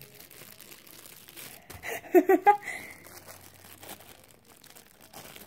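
Plastic packaging crinkling and rustling as squishy toys are handled and unwrapped, with a short vocal exclamation about two seconds in.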